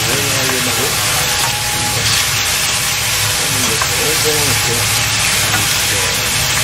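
Pork slices and Chinese yam sizzling steadily in an oiled frying pan as they are stirred and turned.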